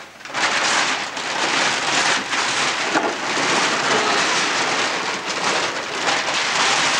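Wrapping paper being ripped and crumpled off a large present: continuous uneven rustling and tearing.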